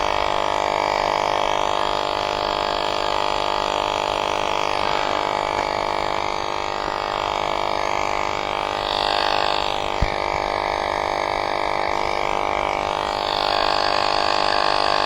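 Small electric air compressor running steadily as it inflates a bicycle tire, a continuous drone with one click about ten seconds in. The tire is slow to fill.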